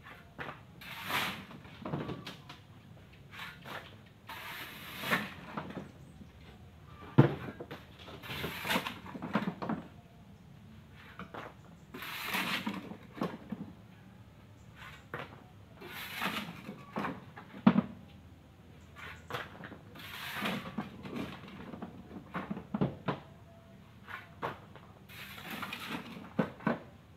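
Gravel being shovelled off the bed of a small pickup truck: a rattling scrape of stones roughly every four seconds as each shovelful is dug and thrown, with sharp knocks in between.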